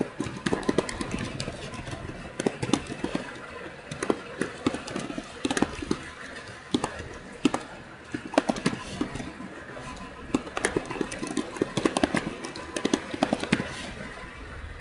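Computer keyboard typing: irregular runs of sharp keystroke clicks over a steady low background hum.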